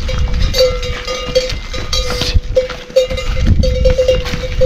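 A metal livestock bell clanking unevenly, two or three strikes a second with a short lull in the middle, over a low rumbling noise.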